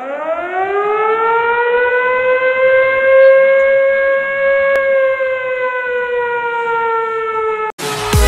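A siren winds up, rising in pitch over about two seconds, then holds one long wail that sags slightly before cutting off abruptly near the end. Electronic dance music starts right after.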